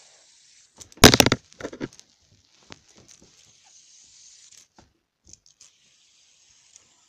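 Loud handling noise about a second in, a brief rustling clatter followed by a smaller one, then faint scattered clicks and rustles as hands toss and catch a fidget spinner.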